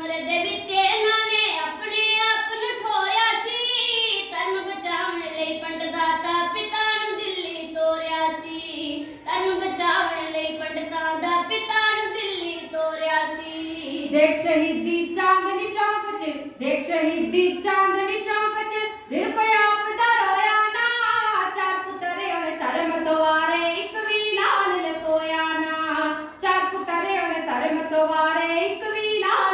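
Two girls singing kavishri, Punjabi devotional folk verse, together in a single melody line that rises and falls, with no instrument playing.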